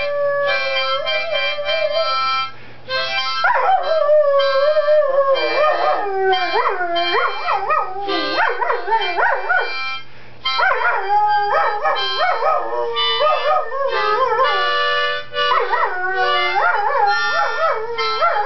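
A dog howling along to music, its wavering howls gliding up and down over steady held notes. The howling starts a few seconds in, breaks off briefly about ten seconds in, then carries on.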